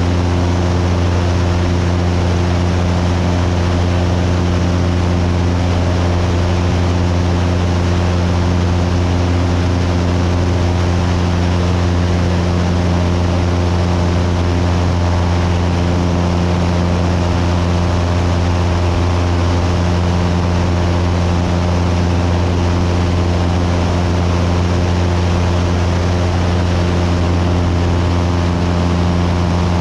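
Cessna 172's piston engine and propeller droning steadily in cruise flight: a constant low hum with several steady tones above it, unchanging throughout.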